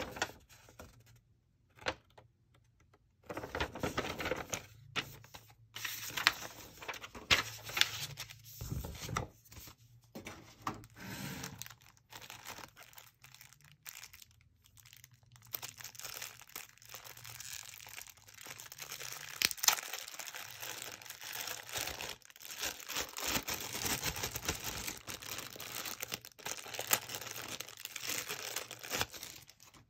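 Clear plastic packaging bags crinkling and tearing in hand as a wrapped headset and its coiled cable are handled, in irregular crackly handfuls with a couple of short pauses.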